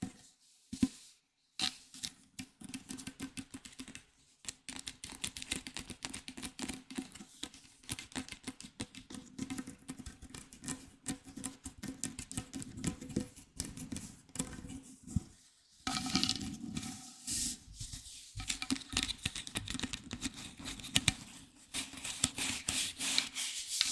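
Rapid, dense tapping and clicking on small objects close to the microphone, with brief pauses about a second in and around the middle, over a faint steady hum.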